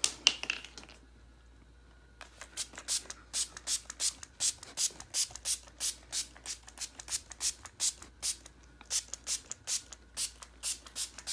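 A grooming brush raked through a timberwolf's thick, shedding coat in quick, even strokes, about three scratchy swishes a second, starting about two seconds in after a few sharp clicks.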